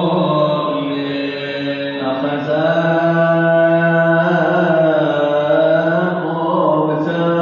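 Coptic Orthodox liturgical chant: a male voice drawing out long melismatic notes that waver and slide in pitch, with a short break about two seconds in.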